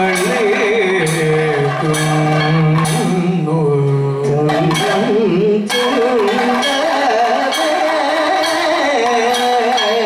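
Kathakali music: male singers sing a padam in an ornamented, wavering melody over repeated percussion strokes from the chenda and maddalam drums. The strokes drop out for a moment about four seconds in while the singing carries on, then resume.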